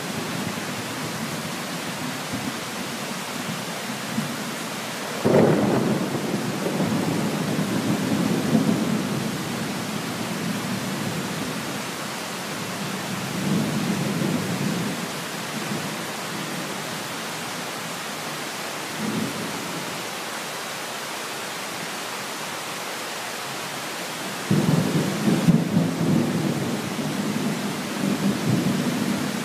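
Steady rain with rolls of thunder. A sudden crack about five seconds in trails off into a long rumble, smaller rumbles follow in the middle, and another loud rumble sets in near the end.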